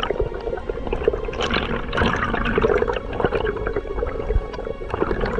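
Underwater sound picked up by a diver's camera: water rushing and bubbling past the housing, with many small crackling clicks and a steady low hum beneath.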